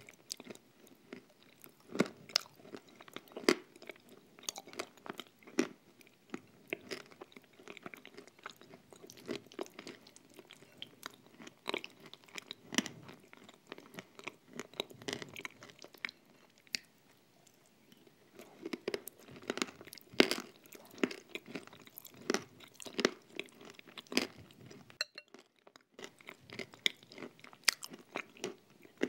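Close-miked chewing of a thick cream with crunchy nut crumbs mixed in: many irregular crunches and clicks, with a pause of about a second near the end.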